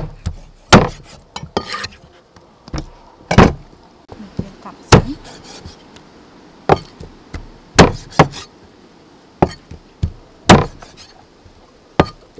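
A cleaver chopping through raw chicken wings onto a thick wooden chopping block. There are about a dozen sharp chops at uneven gaps, with short pauses while the pieces are moved.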